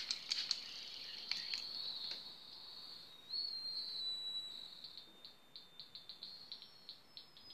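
Cricket chirping: a run of short, high, evenly spaced pulses that briefly blend into a smoother trill partway through.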